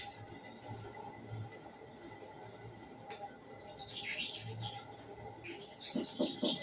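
A clipper blade being rubbed back and forth on a sharpening surface. A sharp click comes at the start and another about three seconds in, then scraping, and near the end steady strokes at about four a second.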